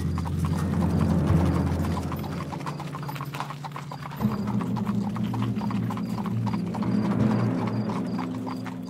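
Horses' hooves clip-clopping steadily as horse-drawn wagons approach, over a low steady drone that shifts in pitch about four seconds in.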